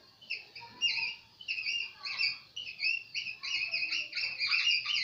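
Whiteboard marker squeaking against the board as words are written, a quick run of short high squeaks, one for each pen stroke, in clusters with brief gaps between words.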